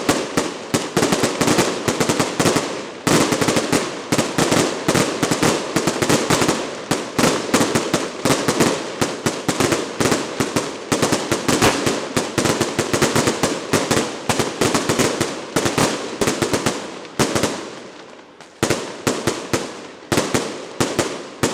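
Aerial firecrackers bursting overhead in a rapid barrage, sharp cracks coming many times a second. Near the end the barrage thins into separate bangs with short gaps.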